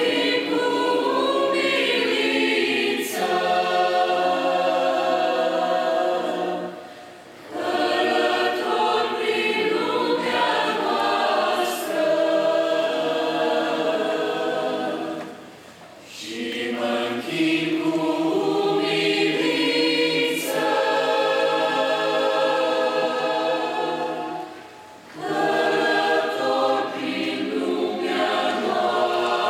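Mixed choir of men and women singing a slow Romanian Christmas song in long held phrases, with a short breath pause between phrases three times.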